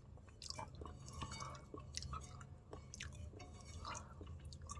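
Faint, irregular chewing and small wet mouth clicks of a person eating instant noodles and rice.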